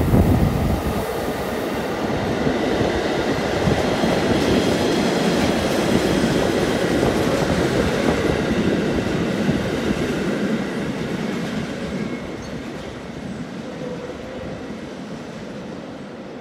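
Construction train hauled by a Swietelsky ER 20 diesel-electric locomotive passing close by. It is loudest as the locomotive goes by at the start, then the wagons' wheels roll steadily over the rails and fade away over the last several seconds.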